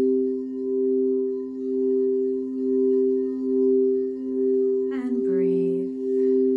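Crystal singing bowls sounding two steady, sustained tones together, the sound swelling and fading about once a second. About five seconds in, a brief extra pitched sound with a gliding pitch joins for about a second.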